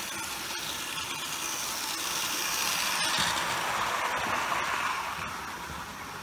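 Hornby OO-gauge model trains running past on the track: a steady whirring of the electric motors and wheels. It is loudest a few seconds in, as the coaches go by close, and fades near the end as they move away.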